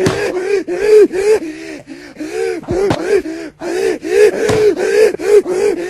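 A voice gasping over and over in quick succession, about four short high-pitched gasps a second, each rising then falling in pitch. A few sharp clicks fall between them, two just under three seconds in and one about four and a half seconds in.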